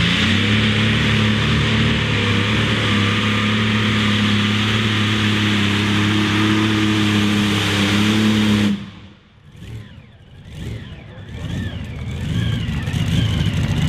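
Modified pulling tractor's engine running hard at full throttle with a steady drone, cutting off abruptly about nine seconds in. A quieter mixed sound builds back up after it.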